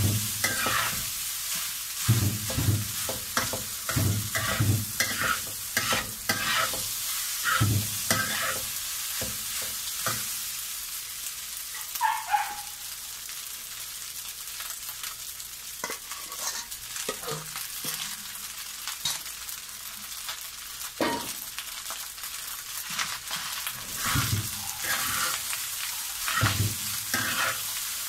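Crab fried rice sizzling in a wok while a metal spatula scrapes and tosses it in runs of quick strokes. The stirring stops for a long stretch in the middle, leaving mostly the sizzle, and picks up again near the end.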